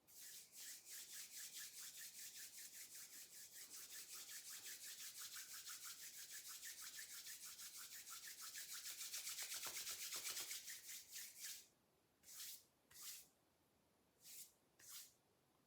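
Palms rubbing together briskly, about five quick strokes a second for some eleven seconds, getting louder toward the end. Then four separate short swishes in two pairs.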